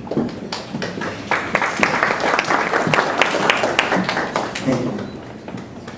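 Audience applauding in a room. The clapping swells about a second in and dies away near the end.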